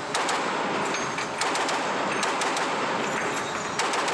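M2 Browning .50-calibre heavy machine gun firing live rounds in several short bursts of rapid shots.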